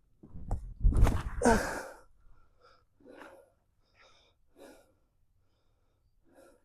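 A disc golfer's sharp, breathy exhale as he throws a tee shot, about a second in, followed by a few faint short scuffs.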